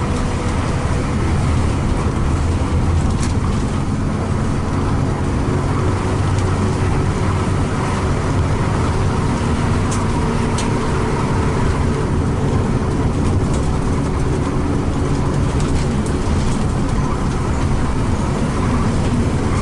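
Mercedes-Benz coach running steadily, with a continuous low engine hum, a faint shifting whine above it, and road noise.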